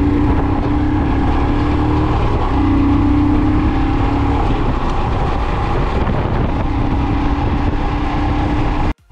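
Motorcycle on the move: the engine runs at a steady note under heavy wind rush on the microphone.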